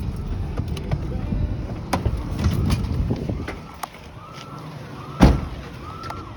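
Vehicle engine and road noise inside a moving truck, easing off about four seconds in. An emergency siren then starts a quick rising-and-falling wail that repeats under one loud thump near the end.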